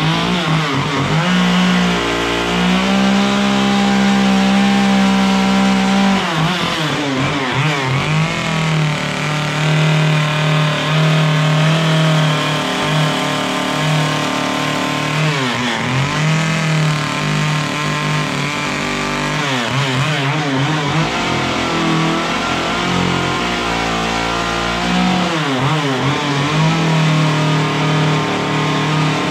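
Chainsaw running at high throttle while carving and rounding off a block of wood. The engine note drops and picks up again several times.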